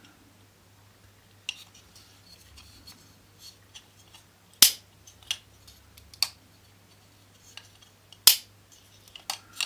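Small black plastic model-kit parts handled and pressed together, giving scattered light clicks and two sharp snaps, about four and a half seconds in and again about eight seconds in.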